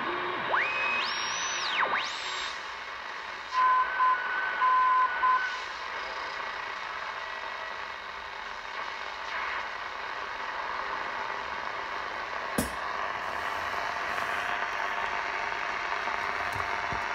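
Grundig Ocean Boy 210 portable radio being tuned across the band. Its speaker gives whistles that glide up and down in pitch as the dial turns. Then comes a short run of loud beeps on a steady tone, then an even static hiss, with a single click about two-thirds of the way through.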